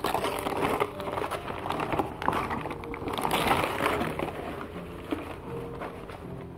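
Toy packaging being handled and opened: an irregular run of crackling and crinkling with small clicks throughout.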